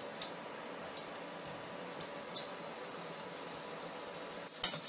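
Hot oil in a kadhai deep-frying Manchurian balls: a steady low hiss and bubbling with a few light pops. A couple of louder sharp crackles come near the end.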